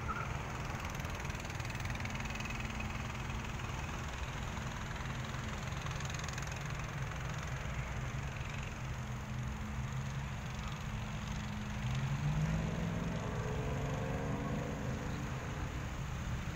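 Car engine running steadily near idle, with a low hum; about twelve seconds in its pitch rises a little, as with a light rev or pulling away.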